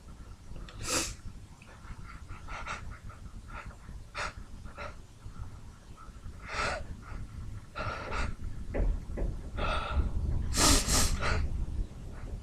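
A man's short sniffs and gasping in-breaths, repeated irregularly, with a louder, longer blast of breath near the end: the build-up of a sneeze that stays stuck.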